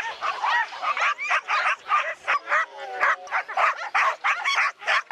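A pack of harnessed sled dogs barking and yelping with excitement, many at once, in quick, overlapping barks.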